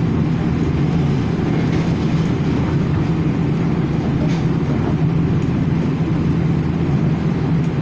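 A Nankai Koya Line electric train running at speed, heard from inside the passenger car: a steady low rumble of wheels on rail with a constant hum underneath.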